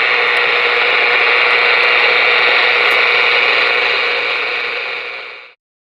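Ranger RCI-2970N4 radio's speaker hissing with steady receiver static on an empty channel, with a faint hum-like tone under it; it fades a little and then cuts off abruptly near the end.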